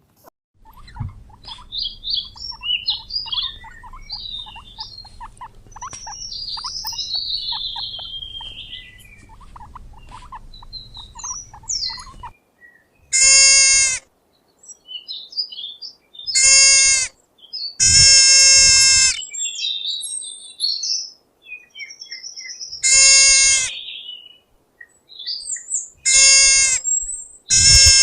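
Small birds chirping over a low steady hum for about twelve seconds. Then five loud animal calls, each about a second long and held at one steady pitch.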